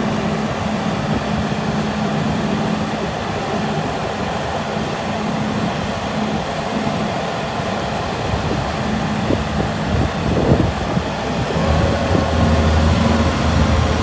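Bobcat S770 skid-steer loader's diesel engine running steadily. About eleven to twelve seconds in it grows louder and takes on a steady whine.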